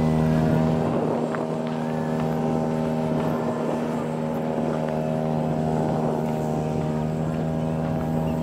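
RC model Shinden fighter's rear pusher propeller and motor running steadily at taxi speed, a constant pitched engine drone with many overtones.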